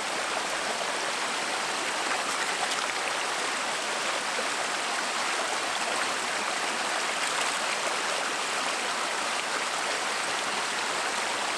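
Small rocky stream flowing steadily over stones, an even, continuous rush of water.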